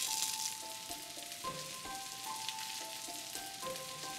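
Sliced red onions sizzling as they start to fry in olive oil in a pan, with background music playing a simple melody.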